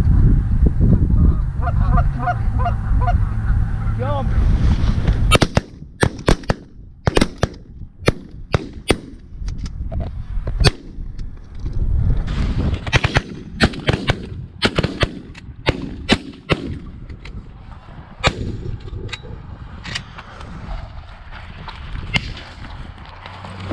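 Canada geese honking over a loud rumble of wind on the microphone, then from about five seconds in a long volley of shotgun fire from several hunters: dozens of sharp shots in quick succession, thinning out over the last few seconds.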